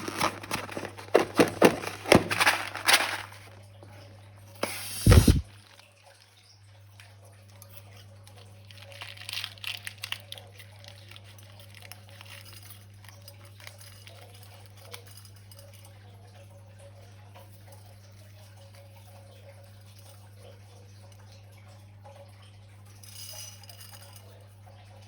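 Sticky, wet clicking and squelching of slime being squeezed and handled, with one loud short burst about five seconds in; after that mostly faint soft crackles over a steady hum.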